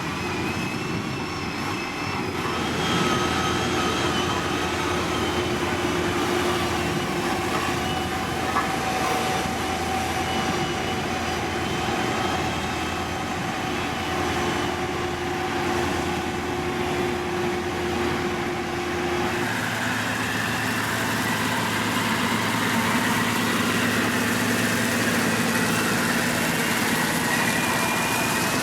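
Diesel engines of heavy road-building machinery running steadily, with a continuous drone and whining tones. The pitch pattern shifts about two-thirds of the way through.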